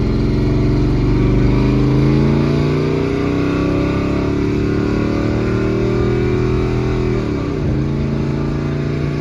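The 5.2 Magnum V8 of a 1998 Dodge Ram 1500 with headers, an H-pipe and a full exhaust, pulling under throttle. Its note climbs steadily for about seven seconds, then drops sharply and settles at a steady lower pitch.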